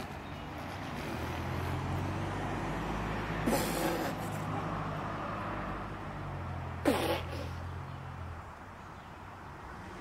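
A motor vehicle's engine running on the road, a steady low hum that comes up about a second in and fades out after about eight seconds. Two short, sharp sounds break in about three and a half and seven seconds in.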